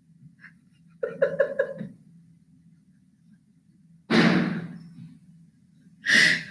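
A man laughing hard: a run of short "ha-ha" pulses about a second in, then a loud breathy burst of laughter about four seconds in and another near the end, over a steady low hum.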